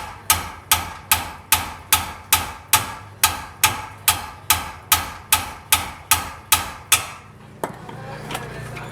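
Hammer blows on a rusted, torch-heated lower control arm bolt, about eighteen ringing metal-on-metal strikes at a steady pace of about two and a half a second, stopping about seven seconds in. The bolt does not move: it stays stuck.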